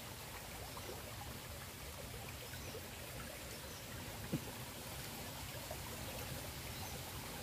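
Water in a small stream running with a steady low rush. About four seconds in there is a single short knock.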